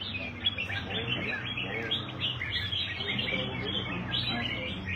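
Caged red-whiskered bulbuls singing, with many overlapping chirps and short warbled phrases, over low background talk.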